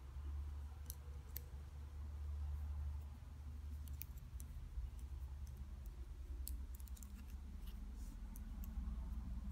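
Wooden double-pointed knitting needles clicking and tapping against each other now and then as stitches are cast off, over a low steady rumble. The clicks come more often in the second half.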